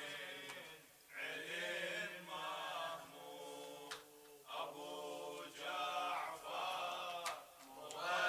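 A group of men chanting a lamentation refrain together, heard faintly, in several short phrases with brief breaks between them.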